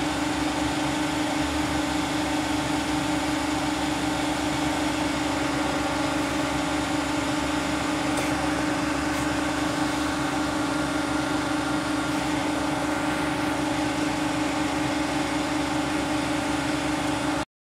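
Steady hum of running machinery, with a constant low drone and fainter steady tones above it, that stops abruptly near the end.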